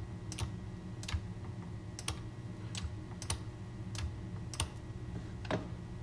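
Computer mouse and keyboard clicks, about a dozen sharp single clicks at uneven intervals, over a low steady hum.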